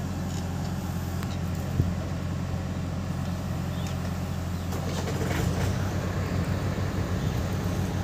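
Diesel engines running steadily: a Mahindra 575 DI tractor idling close by and a JCB 3DX backhoe loader working its loader arm. The engine sound grows a little louder and more throbbing from about five seconds in, as the bucket is raised over the trailer, and there is a single knock about two seconds in.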